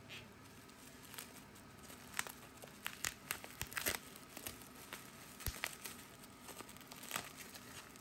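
Delivery packaging being unwrapped by hand, crinkling and tearing in scattered short crackles.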